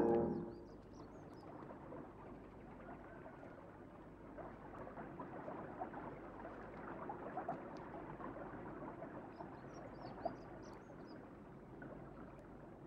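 Brass music cuts off at the very start. Then comes a faint crackling rustle of dry leaves under slow footsteps, with a few short bird chirps about a second in and again near ten seconds.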